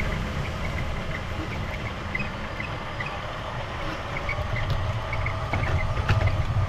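A 1/14 Tamiya Grand Hauler RC truck with trailer rolling over wet grass and onto wet pavement, heard from on the trailer: a steady low rumble of its electric motor, gearbox and tyres, getting louder near the end with a few light clicks.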